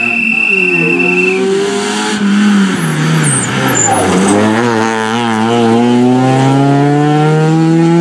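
Opel Astra rally car's engine at full throttle, rising in revs. About two to four seconds in the revs drop and dip as the car slows and slides through a gravel-strewn corner, then climb steadily as it accelerates away. A steady high whistle sounds over the first second and a half.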